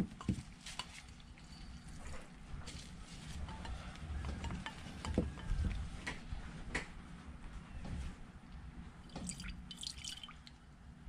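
Cleaning alcohol squirted by syringe through a carburetor's passages, dripping into a ceramic bowl, with scattered light clicks of the syringe and plastic carburetor body being handled.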